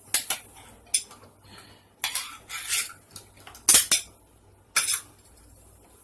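Metal cutlery clinking and scraping against a can or dish while canned cat food is dished out: a few sharp clinks, scraping strokes about two seconds in, and two loud clinks near the end.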